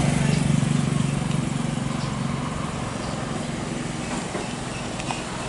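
Airbus A320 jet engines at take-off power during the take-off roll: a steady, heavy rumble that fades as the aircraft pulls away down the runway.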